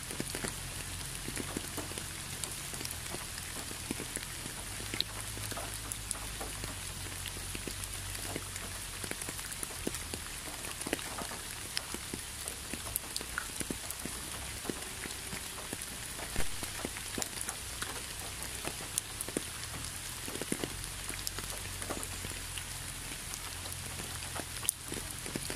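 Steady rain, a constant hiss with many separate drops ticking on a surface, and a low rumble underneath. One drop lands louder about sixteen seconds in.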